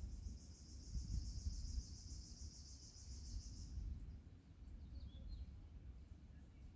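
Outdoor ambience: a high, fast trill for about the first four seconds, then a few faint bird chirps, over a steady low rumble.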